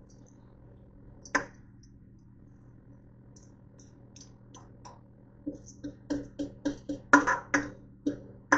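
Metal tongs clicking and tapping against a stainless steel mixing bowl while shredded cabbage is pushed out into a pot: one sharp click about a second in, then a run of quick clicks, two or three a second, through the second half. A faint steady low hum runs underneath.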